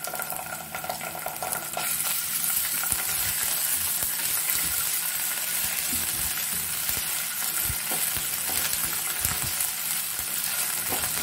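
Ginger-garlic paste and chopped onion sizzling in hot oil in a nonstick frying pan, stirred with a slotted spatula. The sizzle grows louder about two seconds in, and the spatula strokes scrape against the pan.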